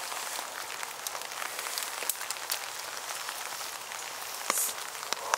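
Light rain pattering: irregular sharp drop ticks over a steady hiss, with a brief louder rush about four and a half seconds in.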